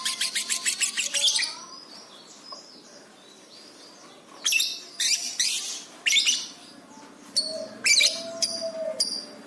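Lovebird singing: a fast chattering trill of about ten chirps a second that stops about a second and a half in, then after a pause loud, sharp single chirps and squeaks. A lower, drawn-out note sounds under the chirps near the end.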